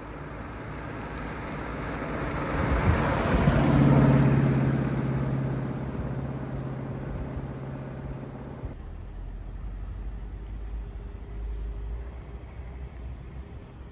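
1933 Auburn 8-101A Boattail Speedster's straight-eight engine running as the car drives past, with a rush of tyre and road noise that swells to a peak about four seconds in and then fades while the engine note holds steady. About nine seconds in the sound cuts to a quieter low rumble.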